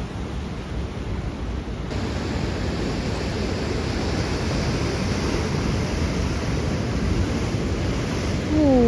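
Ocean surf breaking and washing over the shore, a steady rushing noise that turns brighter and hissier about two seconds in. Near the end, a brief falling voice-like sound.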